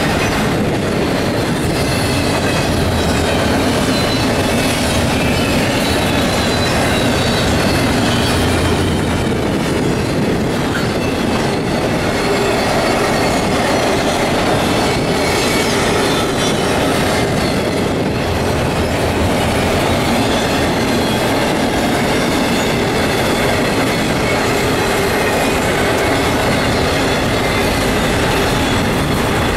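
CSX intermodal freight train's container and trailer cars passing close by at speed: a loud, steady rumble of steel wheels on the rails with thin, high-pitched tones from the wheels running through it.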